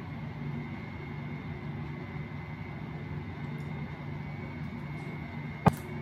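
A steady low mechanical hum with a faint high-pitched whine over it, and one sharp click or knock about five and a half seconds in.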